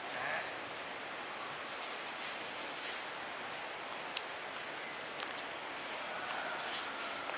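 Steady high-pitched insect buzz over a faint outdoor hiss, with a couple of faint clicks about four and five seconds in.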